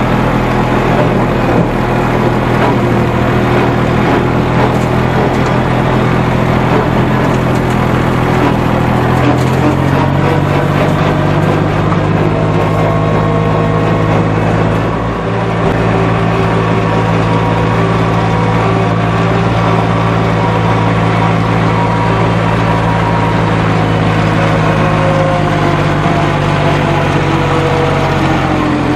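Lawn mower engine running steadily, its note changing slightly about ten seconds in.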